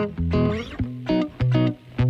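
Background music: a run of short plucked guitar notes over a bass line.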